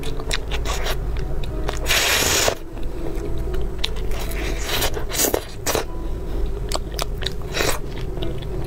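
Close-up eating sounds of a crisp-shelled ice cream puff being bitten into and chewed: a long crackling crunch about two seconds in, then a run of short, sharp crunches and clicks.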